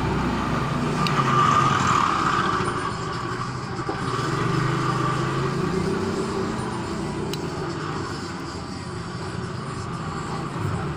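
Background motor traffic, a steady rumble and hiss that swells as vehicles pass, about a second in and again around four seconds.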